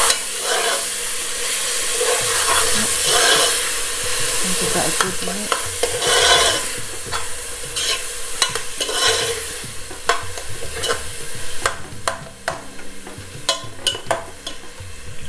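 Freshly added chopped onions sizzling in hot oil with garlic and ginger in a metal pot, stirred with a metal spoon. The sizzle dies down in the second half, where the spoon's sharp clicks and scrapes against the pot stand out.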